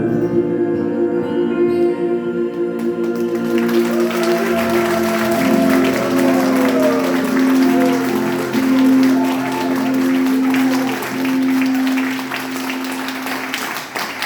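The band's closing chord is held while audience applause breaks out about three seconds in and keeps going over the sustained notes.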